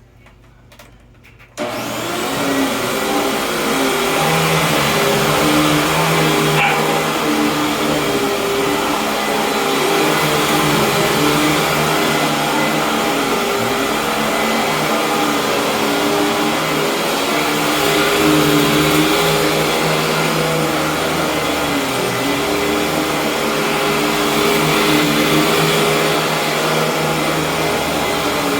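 Hoover WindTunnel Supreme upright vacuum cleaner switched on after a few clicks, starting abruptly about a second and a half in, then running steadily with its motor and brushroll going, its hum wavering slightly in pitch.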